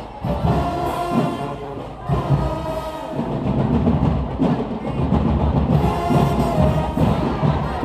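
Music with heavy drum beats.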